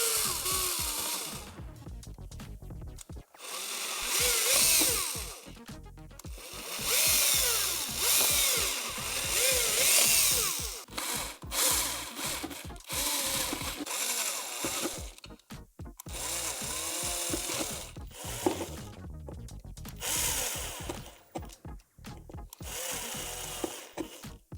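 Power drill boring holes through a plastic door panel, run in a series of short bursts with the motor speeding up and slowing down between them.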